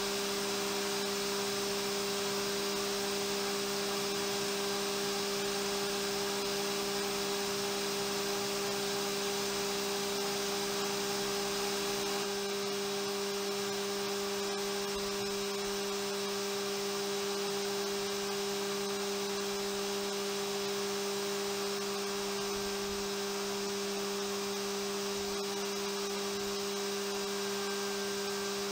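Haas CNC mill spindle running steadily while a small end mill cuts an adaptive toolpath in a pocket of a hardened steel knife blade: a constant hum with two steady tones and a hiss above them. A few of the fainter tones drop out about twelve seconds in.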